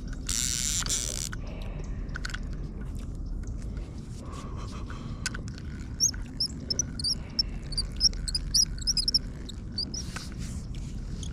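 A small bird chirping in quick, high, repeated notes from about six to nine seconds in. Underneath is a low rumble of wind or handling noise, with scattered light clicks and a brief rustling hiss at the start.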